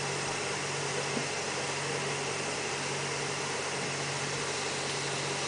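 Steady hum and hiss of motor-driven equipment running at a septic tank repair site, with a constant low drone and no change in speed.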